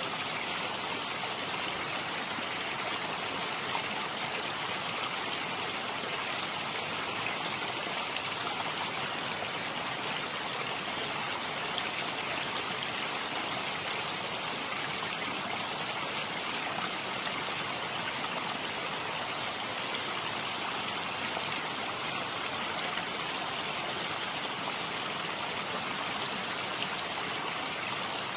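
Running water, an even steady rush with no pauses or changes.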